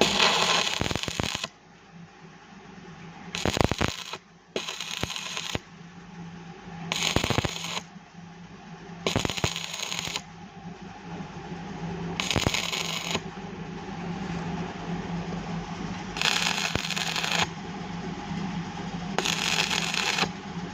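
Electric arc welding in about eight short crackling bursts, each lasting about a second: tack or short welds being laid on scrap steel. A steady low hum runs underneath.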